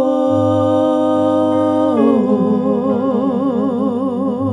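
Female singing: a long sustained note held steady, then stepping down about two seconds in to a note sung with a wide vibrato.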